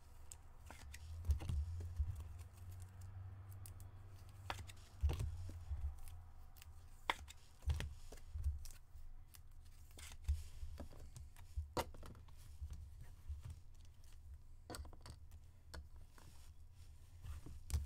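Trading cards and card packaging being handled: scattered clicks, taps and light rustles over a low steady hum.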